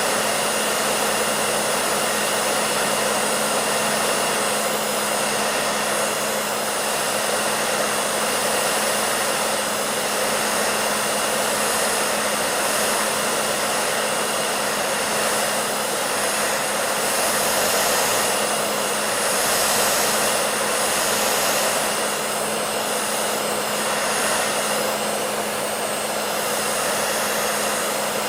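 Hair dryer running steadily, a constant blowing rush with a low steady hum from its motor.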